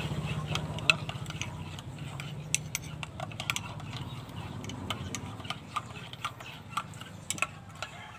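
Metal spoon stirring a coffee mixture in a ceramic mug, clinking irregularly against the sides. A low drone in the background fades over the first few seconds.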